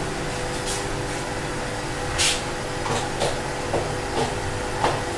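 Gas stove burner hissing steadily under an aluminium pot of cooking masala, with a faint hum and about six short pops or bubbling sounds in the second half.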